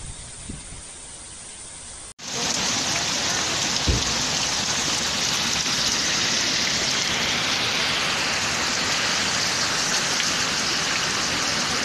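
Heavy rain pouring down onto a flooded street, a loud steady hiss of rain on running water. For the first two seconds, before an abrupt cut, there is a quieter rush of storm wind with low rumbles on the microphone.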